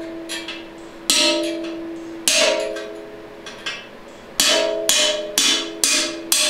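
Hammer blows on a driver, knocking the old case bushing out of a 4L60E automatic transmission case. There are seven metallic strikes, each leaving a ringing tone: two spaced more than a second apart, then five in quick succession about half a second apart near the end.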